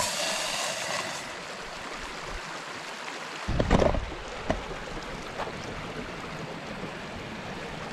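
Steady rushing hiss of a creek mixed with a Jetboil camp stove burner reheating the water, with a louder knock or rustle about three and a half seconds in.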